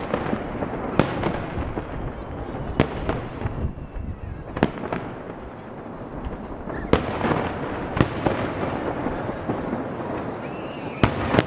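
Aerial firework shells bursting: about six sharp booms at irregular one- to two-second intervals, with crackling and rumbling between them.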